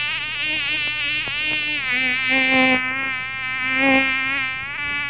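Gas chainsaw on a chainsaw mill, running under load as it rips a green pecan log lengthwise into a slab. Its engine note sags and recovers several times as the chain bites into the cut.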